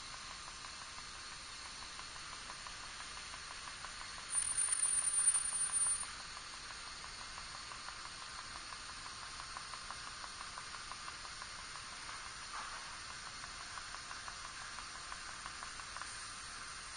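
Pulse TIG welding arc hissing steadily, with a faint regular pulsing. About four seconds in, a louder, harsher burst lasts roughly two seconds.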